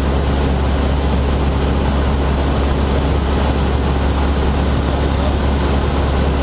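Cabin noise of a Cessna Aerobat in flight: its single piston engine and propeller running steadily, a deep even hum with a broad rushing hiss over it.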